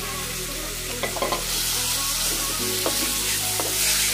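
Marinated chicken pieces sizzling as they land in hot oil in a kadhai and are stirred with a spatula, with a few short scrapes of the spatula against the pan. The sizzle grows louder about a second and a half in.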